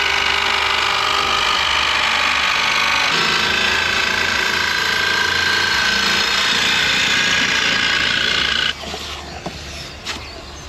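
A power tool running at a steady speed, its tone shifting slightly about three seconds in, then stopping abruptly near the end, followed by a few light knocks.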